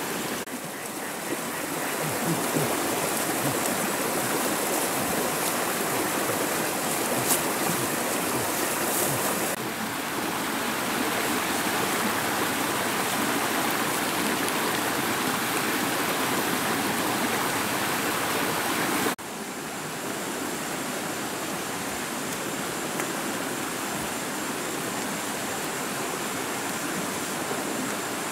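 A rocky mountain stream running: a steady rush of water that changes level abruptly about ten and nineteen seconds in.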